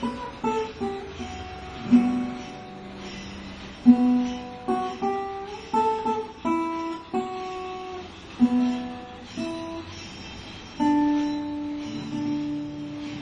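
Solo guitar playing a slow melody of plucked single notes over lower bass notes, each note ringing out and fading. Near the end one note is held and left to ring.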